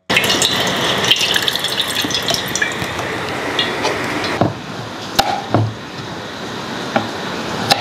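Coconut water pouring and splashing from a cracked coconut into a steel pot, a hissing stream full of fine crackles. After about four and a half seconds it gives way to a few sharp separate knocks of a knife cutting coconut on a wooden board.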